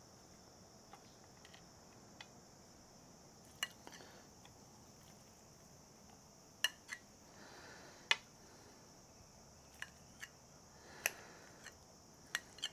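Metal spoon clinking against a ceramic bowl as scrambled eggs are scooped and scraped out: scattered light, sharp clicks with a few short soft scrapes between, all faint.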